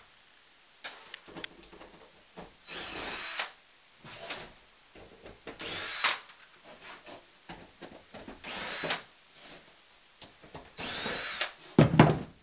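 DeWalt cordless drill/driver running in four short whirring bursts a few seconds apart, backing screws out of a sheet-metal air-handler cover panel. A loud thump near the end.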